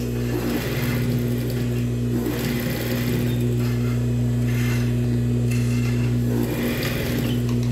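Industrial straight-stitch sewing machine topstitching fabric. The motor hums steadily throughout, and several stretches of fast stitching come as the cloth is fed under the foot.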